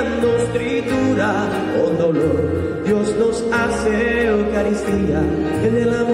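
Offertory hymn at Mass: a sung church song over instrumental accompaniment, with held bass notes changing every second or so under a wavering melody.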